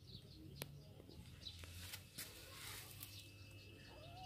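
Faint taps and scuffling from two kittens play-fighting on a dirt floor and a wooden plank, a few sharp light clicks among them, with birds chirping faintly in the background.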